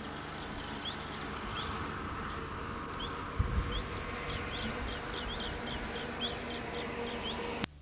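Outdoor ambience of scrubland at dusk: many short high chirps from small creatures, coming more often in the second half, over a steady hiss and low hum. A few low bumps come near the middle, and a sharp click cuts the sound off just before the end.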